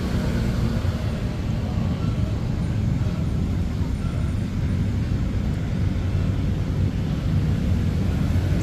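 Steady low rumble of outdoor traffic noise, even throughout with no distinct events.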